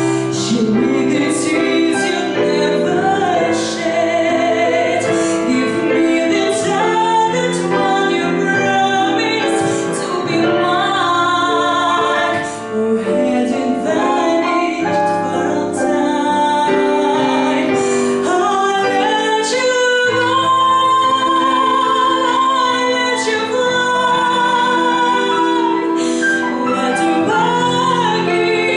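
A woman singing a ballad with digital piano accompaniment, holding long notes with vibrato.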